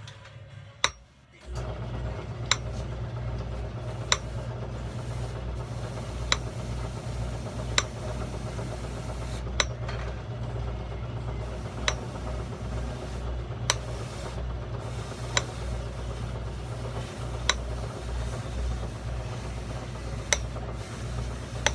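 An electric motor in a shoe-repair shop switches on about a second and a half in and runs with a steady hum. Sharp single taps sound about every two seconds over it.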